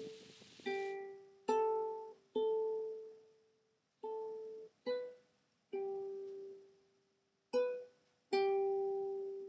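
Background music: a slow melody of single plucked-string notes, about eight of them, each ringing out and fading before the next.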